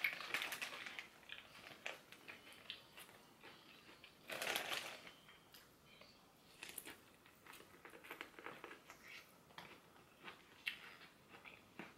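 Faint crinkling of a plastic food bag as hands dig into it, then soft bites and chewing on corn on the cob, heard as scattered small clicks and wet smacks.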